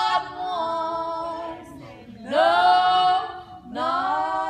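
Gospel hymn sung a cappella, a woman's voice leading with others in harmony, in three long held notes that each slide up into pitch, with short breaks between them.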